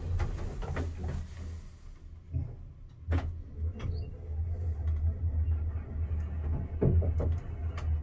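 MidWestern traction lift car in motion: a steady low hum with a few scattered clicks and knocks.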